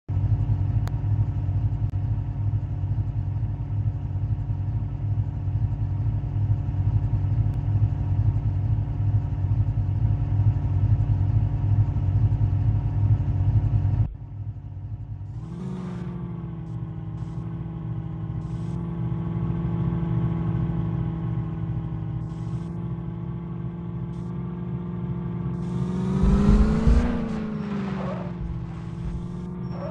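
Mahindra Thar's engine running steady and unchanging for about half the time, then an abrupt cut to the engine pulling under load, its pitch drifting slowly, with one rev that rises and falls near the end.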